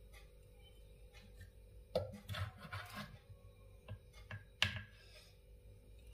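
A wooden ladle knocks and scrapes against a clay pot while scooping curry, about two seconds in. A single sharp knock follows a little over two seconds later.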